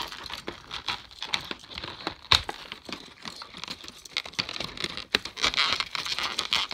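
Plastic packaging crinkling and crackling as it is handled and pulled apart, with scattered irregular clicks and one sharper click about two seconds in.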